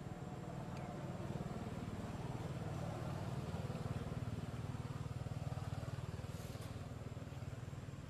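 Low, steady rumble of a motor vehicle engine, swelling through the middle and easing slightly near the end.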